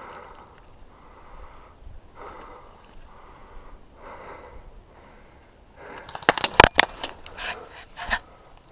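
Heavy breathing, a breath about once a second, then about six seconds in a rapid string of sharp airsoft gun shots, the loudest sound, lasting about two seconds.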